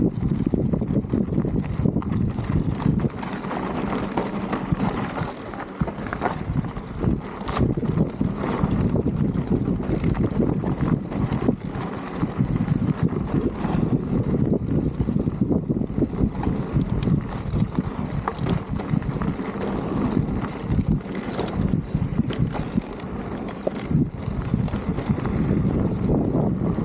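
Mountain bike riding down a dry dirt trail, heard from the bike: tyres rolling over loose dirt and stones, a steady clatter of short knocks and rattles from the bike, and wind rushing over the microphone.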